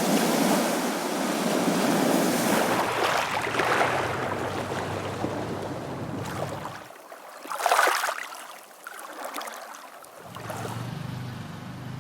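Waves washing on the shore with wind, loud and steady at first and then settling lower, with one brief surge about eight seconds in.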